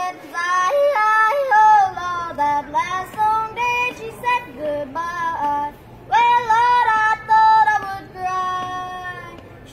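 A high voice singing a melody in phrases of held and gliding notes.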